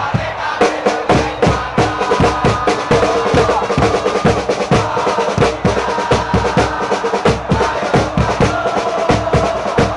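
Football supporters chanting together in the stands, driven by a steady beat of supporters' drums struck several times a second.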